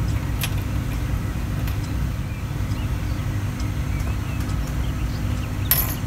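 Steady low background rumble, with a light click about half a second in and a short rustle near the end as the zinc-plated fishing hooks are handled.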